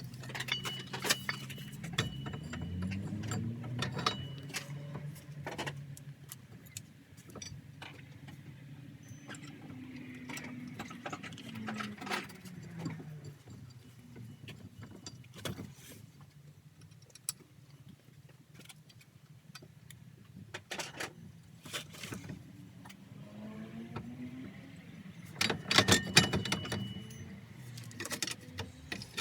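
A motor vehicle's engine running, its pitch rising and falling a few times, with many sharp metallic clinks and clicks over it, bunched near the start and again near the end.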